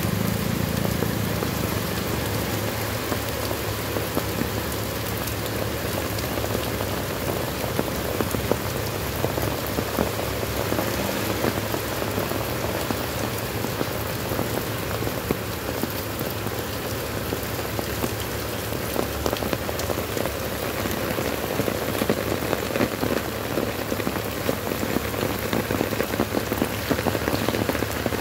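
Heavy rain on a stone-paved street and sidewalk: a steady rush of rain with many distinct sharp drop impacts splashing on wet paving and puddles.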